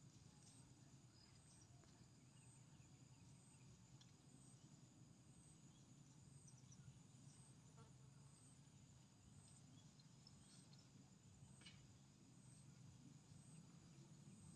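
Near silence, with a faint, high insect trill pulsing about twice a second and a few faint rustles.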